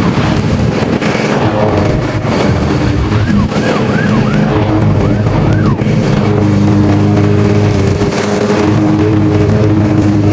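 Lawn mower engine running steadily while cutting grass.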